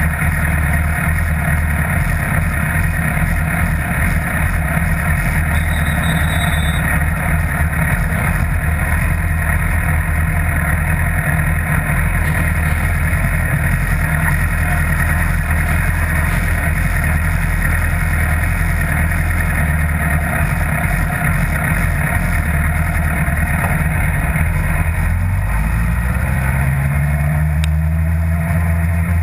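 2011 Yamaha R1's crossplane inline-four engine idling steadily. About 25 seconds in, its note rises as the engine picks up revs.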